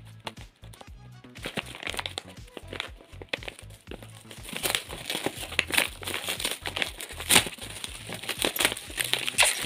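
Clear plastic film crinkling and crackling as hands handle and pick at it around a paper box, the crackles coming thicker and louder in the second half. Background music with a steady beat runs underneath.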